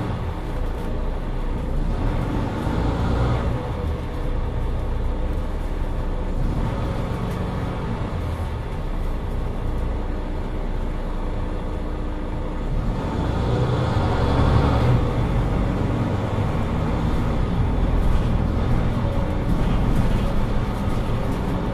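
Mercedes-Benz Citaro 2 city bus on the move: a steady low engine and road drone that swells twice, about three seconds in and more strongly around fourteen seconds in.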